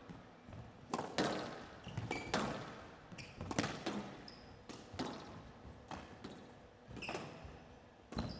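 Squash rally on a glass court: the rubber ball knocking off the rackets and the walls in sharp knocks about a second apart, some in quick pairs, each leaving a short ring in the hall.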